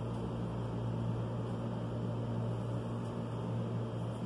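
Steady low mechanical hum, like an air conditioner or fan running, with a few faint pencil strokes scratching on paper.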